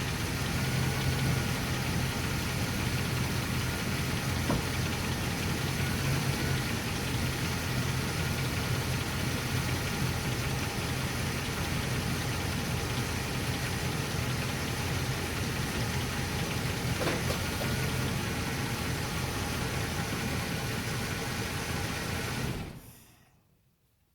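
2006 Ram 1500 4x4 running, a steady mechanical noise with a low hum under it, as the truck is checked for a grinding noise. It fades away quickly near the end.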